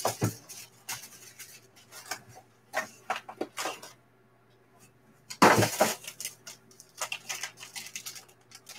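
Black plastic wrapper crinkling and rustling as it is worked open by hand, with light clicks and knocks of the hard plastic graded-card slab inside. The handling comes in irregular bursts, briefly stops about four seconds in, then the loudest crinkle follows about a second later.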